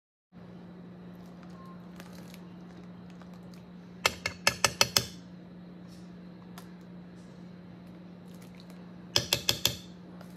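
Two quick runs of five or six light clinks of tableware, about five seconds apart, over a steady low hum.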